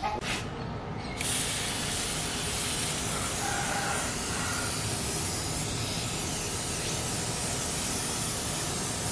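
Aerosol spray can hissing steadily through a thin straw as lubricant is sprayed onto a motorcycle drive chain; the spray starts about a second in.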